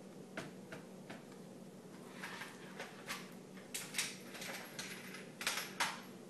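Small Phillips screwdriver backing out the laptop screen's mounting screws: a few light clicks, then irregular scraping and clicking of metal on plastic, loudest near the end.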